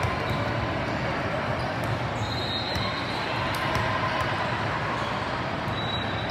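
Basketball being dribbled on a gym court during play, over the steady background noise of the hall.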